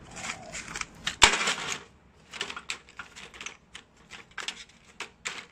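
Blister-packed drill bits being dropped and shuffled in an aluminium tray: a run of irregular plastic clicks and clatters, with one loud knock about a second in.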